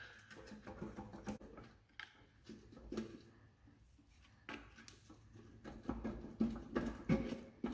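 A screwdriver prying and working at the joint of a Ford 8-inch rear-end housing to free the differential. The sound is a scatter of short clicks, taps and scrapes, sparse in the middle and busier near the end.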